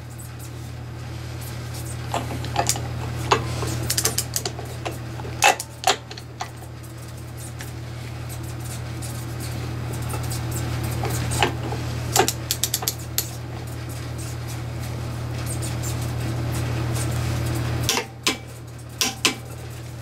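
A torque wrench ratcheting a spindle nut on an axle spindle in scattered short metallic clicks, with the nut being brought up to 50 foot-pounds to seat the wheel bearings. A steady low hum runs underneath.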